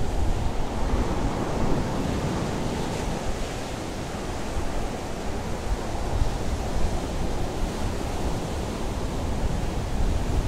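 A steady, deep rush of wind and surf noise with no distinct events.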